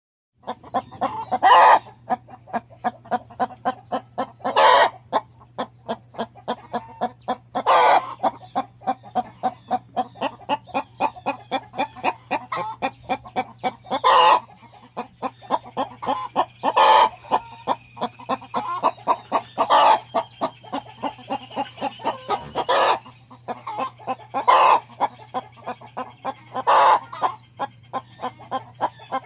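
Free-range hen cackling: a rapid, even run of short clucks, about three or four a second, broken every few seconds by a louder drawn-out call. A steady low hum runs underneath.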